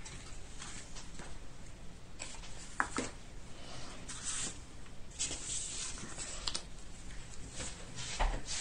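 Paper and cardstock being handled: scattered light rustles and small taps, with a brief sharper sound about three seconds in.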